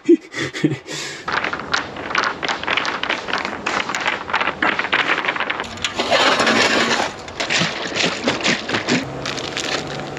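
A rapid, irregular series of clicks, knocks and rustles from hands handling tools and materials, with a burst of hissing noise about six seconds in.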